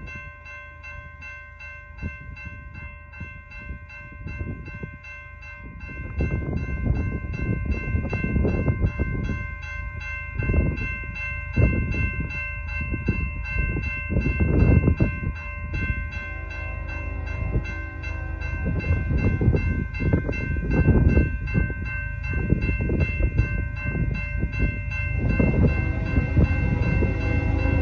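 BNSF doublestack intermodal freight train approaching in the distance, its locomotives growing louder toward the end. Wind gusts buffet the microphone, and a steady high ringing tone sits underneath throughout.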